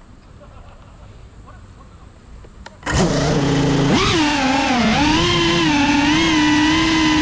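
An FPV quadcopter's brushless motors spin up suddenly about three seconds in, then a steady high whine that dips and rises in pitch as the throttle changes and settles into a wavering drone-motor hum. Before that, only faint outdoor background.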